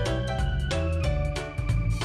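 Background music: held notes over a pulsing low bass line.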